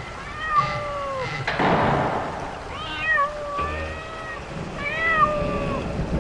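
A cat meowing three times. Each call lasts about a second and bends up in pitch, then down. Between the first and second call there is a short burst of noise.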